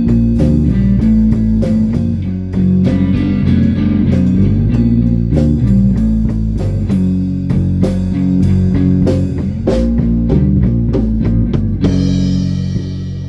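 Rock band jamming: electric guitar, bass guitar and drum kit playing a bluesy rock groove. About twelve seconds in the drum hits stop and the notes are left ringing.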